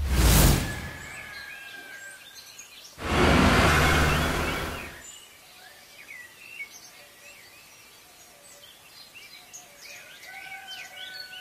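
Small birds chirping, broken by two loud bursts of rushing noise: a short one at the very start and a longer one of about two seconds starting three seconds in.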